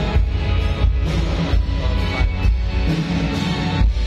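Loud band music played through a concert PA sound system during a sound check, heavy in the bass, with a steady beat.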